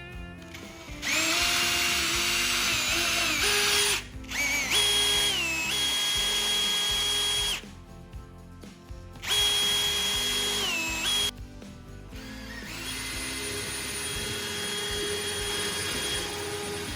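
Electric drill boring nail pilot holes through cypress hive-box boards, run in four bursts with short pauses between. The motor whine rises and falls in pitch within each burst, and the last burst is longer and quieter.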